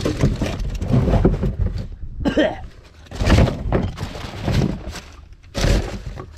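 Rummaging through a bin of discarded cans and containers: metal and plastic knocking and clattering in irregular bursts.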